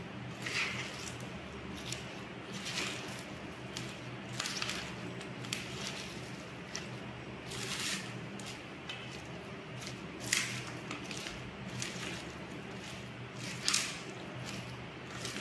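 A hand squeezing and mixing raw chicken pieces with chopped greens and spices in a steel bowl: wet squelches and leaf rustling at irregular intervals, with two louder squelches in the second half.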